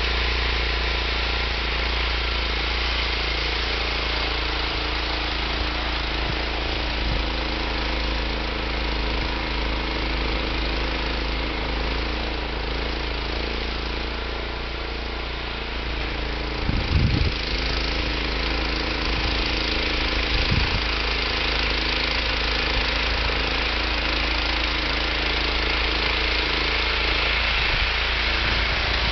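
ZLST 1101 Q snow thrower's engine running steadily while the machine throws snow, with a brief cluster of low thumps about halfway through.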